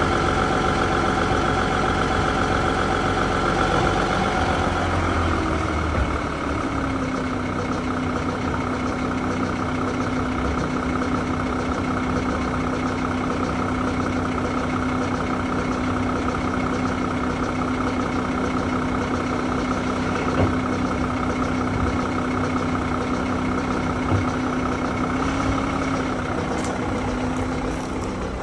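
VW Touareg V6 3.0 TDI diesel running with a steady pitched tone over the engine sound. The tone slides down in pitch about five seconds in, then holds steady. This is the strange noise that comes on once the car has been moved and fades only after 2 to 5 km of driving; its cause is unknown.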